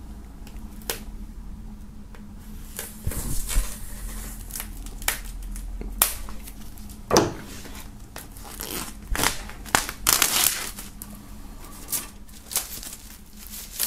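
Plastic shrink-wrap foil on an LP record sleeve being cut open at its sealed seam with a serrated knife and pulled off, crinkling and crackling in irregular bursts.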